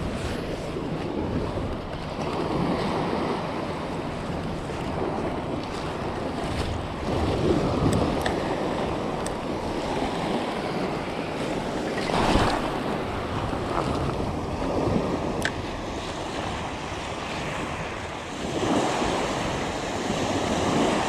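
Surf washing onto the shore, swelling in several surges, with wind on the microphone.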